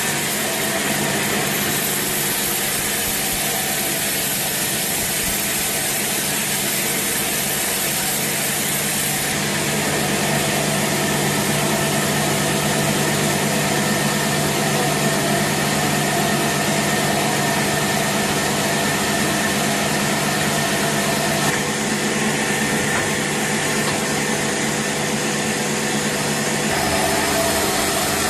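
Sawmill machinery running steadily: a constant motor hum under broad mechanical noise, getting a little louder about a third of the way in.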